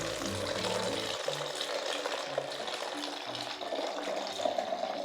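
A Foley waterfall effect: a stream poured from a tray onto a small object, making a steady rushing hiss. The distance between the tray and the object shapes the sound. Background music plays under it.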